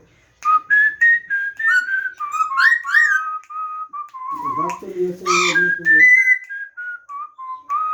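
Blue-fronted Amazon parrot whistling a short tune of clear notes that step up and down, with a brief lower voice-like call partway through.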